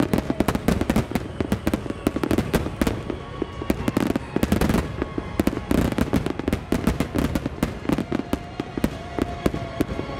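A dense barrage of aerial fireworks shells launching and bursting in rapid succession, many sharp reports a second overlapping one another, with music faintly underneath.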